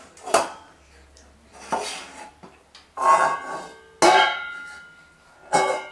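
A dog bowl knocked and clattered about by a baby: about five separate knocks, several leaving a brief ringing.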